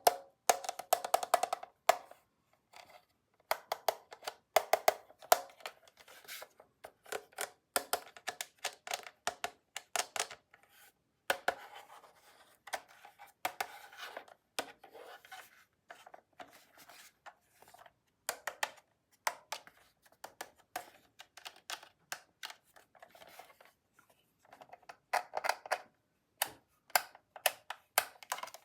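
Small hard plastic toy parts clicking, tapping and rattling as they are handled, in irregular bursts of quick sharp clicks with short pauses between.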